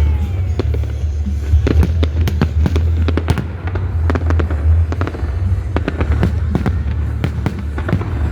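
Fireworks going off in quick succession: many sharp bangs and crackles over a steady low rumble. A falling whistle fades out in the first half-second.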